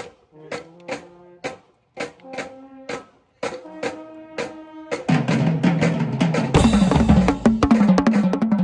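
Yamaha marching tenor drums (quints) being played: single strokes on drums of different pitch, about two a second, then from about five seconds in a loud, fast run of strokes around the drums. A cymbal crash comes in about six and a half seconds in.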